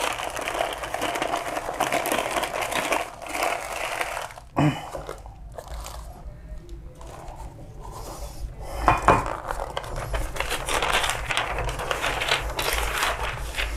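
Plastic scraping and crinkling from handling a photocopier's developer unit while its used toner is emptied out. There is a sharp knock about four and a half seconds in and another about nine seconds in.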